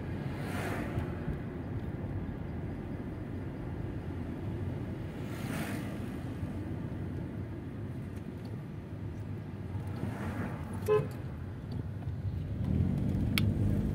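Steady low engine and road rumble from inside a moving Mercedes-Benz car. Other cars whoosh past three times, and a short car horn toots about eleven seconds in.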